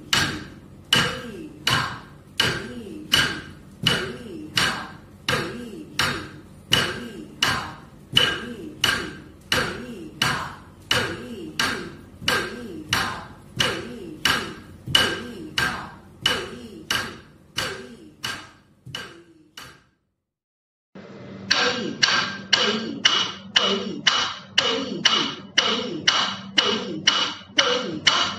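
Sharp strikes at an even pace of about two a second, each with a brief ringing tone, keeping time for Bharatanatyam kudhithu mettu adavu practice. About two-thirds of the way through the beat stops for about a second, then resumes a little duller.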